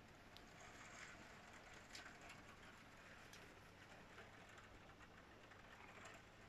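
Faint, steady hiss of heavy rain heard through a closed window, with scattered ticks of drops striking the glass.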